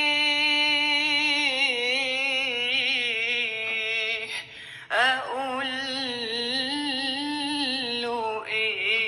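An Arabic song played from the Xiaomi Redmi Note 9S's loudspeaker, loud and clear: a singer holds long, wavering notes, with brief breaks about halfway and near the end.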